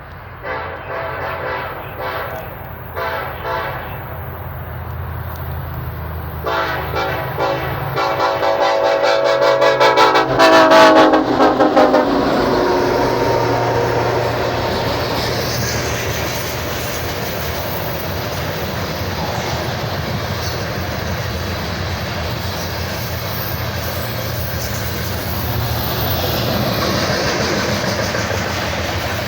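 Air horn of a BNSF EMD SD70ACe diesel locomotive sounding several short blasts, then a longer sounding that grows louder and drops in pitch as the locomotive passes about twelve seconds in. After that the loaded coal train rolls by steadily, a rumble of engines and freight cars on the rails.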